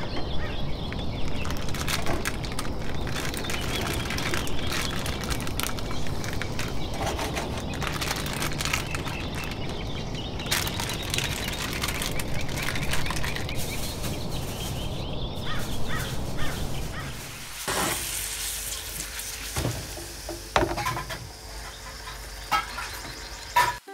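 Sausages, potatoes and then bacon sizzling and crackling in butter in a frying pan. About three-quarters of the way through, the sizzle thins out to sharper, separate pops.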